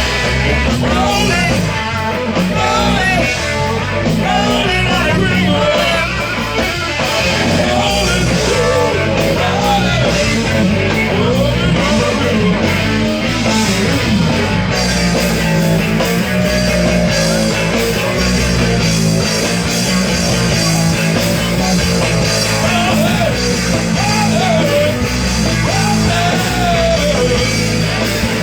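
Live rock band playing an instrumental passage, electric guitar over bass and drums, loud and continuous.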